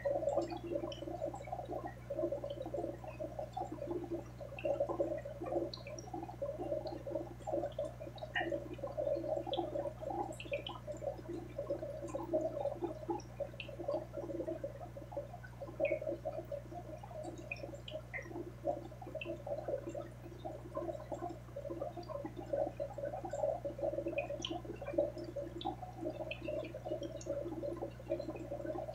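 Aquarium water bubbling and gurgling continuously, with small scattered ticks and a steady low hum underneath.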